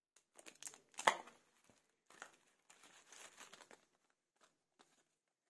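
Thin plastic retail packaging crinkling and rustling in the hands: a sealed plastic bag and a plastic blister pack being handled, with a sharper click about a second in and a few faint ticks near the end.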